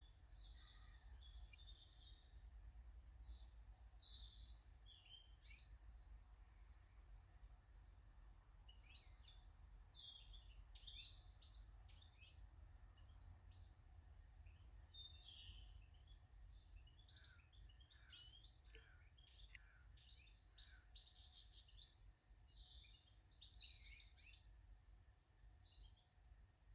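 Small garden birds chirping and calling, many short high calls overlapping throughout, busiest in the second half, over a faint steady low rumble.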